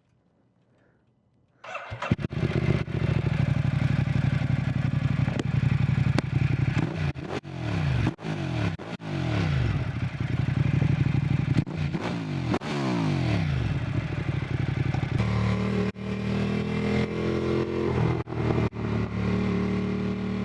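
Motorcycle engine cutting in sharply about two seconds in, then revving up and down over and over, and holding a steadier note for the last few seconds.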